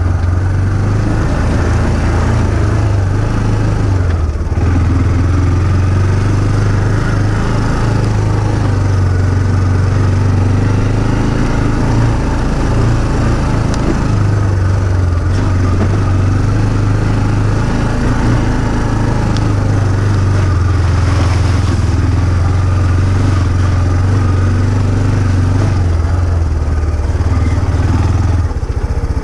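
Small off-road vehicle engine running under way, its note easing off and picking up again with the throttle a few times: around four seconds in, between about twelve and fourteen seconds, and near the end.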